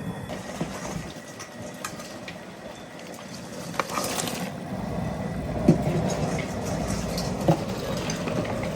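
Steady low rumble of the crawfish-boil pot's gas burner and boiling water. The rumble dips about a second in and comes back strongly about halfway through. Scattered clicks and clatter run over it, with a few sharp knocks, the loudest near the end.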